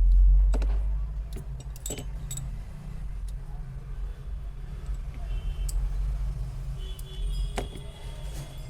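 Scattered light metallic clicks and taps of small tools and parts over a steady low hum, with faint traffic sounds near the end.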